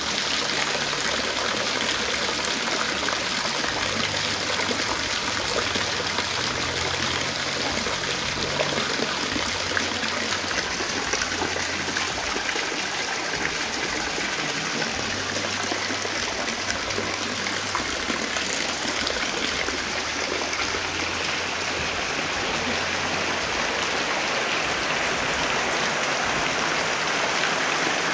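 Heavy rain falling steadily, with a stream of runoff from the roof pouring and splashing into a plastic basin at the start.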